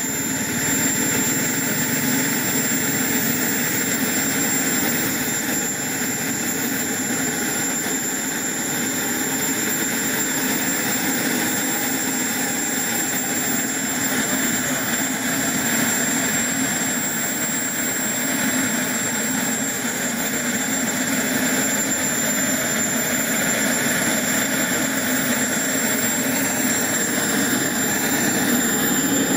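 KingTech K80E model jet turbine running at idle on the ground: a steady rushing noise with a constant high whine, growing a little louder near the end.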